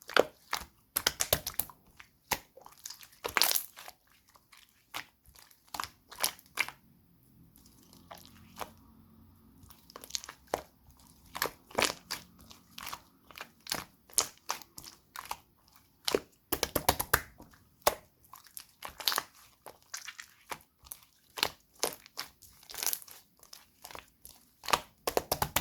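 Gold-pearl slime being pressed, folded and stretched by hand, giving irregular sharp clicks and pops as trapped air bubbles burst, some in quick clusters.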